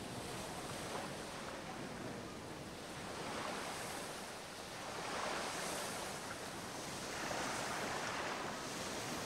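Sea waves washing onto a beach: a steady surf hiss that swells and eases about every two seconds.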